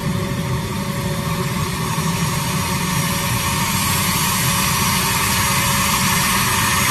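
A-10 Thunderbolt II's twin TF34 turbofan engines running at low taxi power: a steady jet rush and whine over a low rumble. The high whine grows louder through the second half as the jet turns toward the listener.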